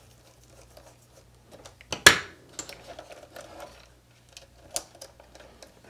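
Small clicks and taps of a hex driver and hard plastic RC crawler parts being handled while a shock is fastened to its mount, with one sharp, louder clack about two seconds in. A faint steady low hum sits underneath.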